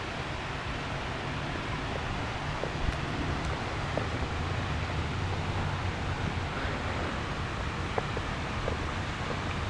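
Steady outdoor ambient noise with a low rumble and scattered faint short ticks.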